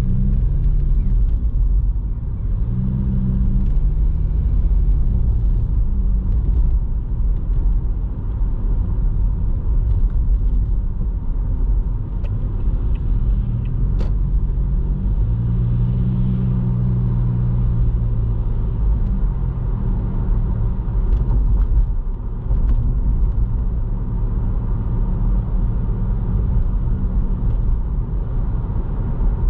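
Toyota Vitz driving on the road: a steady low rumble of road and engine noise, with the engine note rising and falling as the car speeds up and eases off. There is a single sharp click about halfway through.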